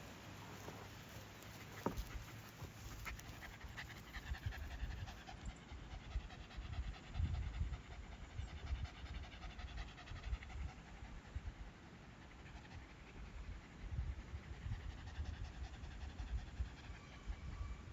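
Rapid, irregular panting breaths close to the microphone.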